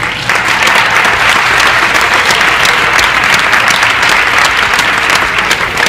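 Audience applauding: dense, loud clapping from many hands that starts just after the beginning and holds steady.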